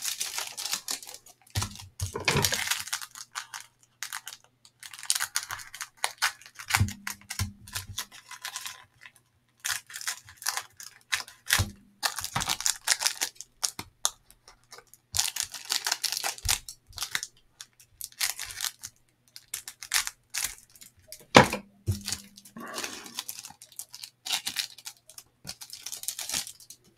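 Cellophane wrapper of a 1989 Fleer baseball cello pack crinkling and tearing in irregular bursts as it is handled and opened, with a few soft knocks.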